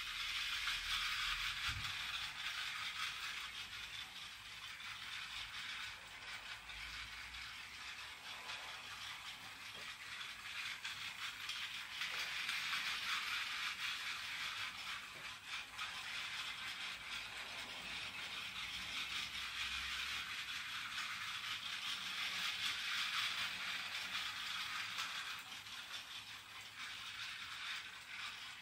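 Battery-powered miniature toy train rattling as it runs along plastic track, a dense fine clatter that grows louder and fainter a few times as it goes round.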